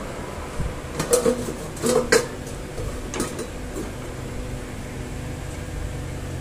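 Metal kitchen utensils clinking and knocking against dishes: a cluster of sharp knocks about one to two seconds in, then a few lighter ones around three seconds, over a steady low hum.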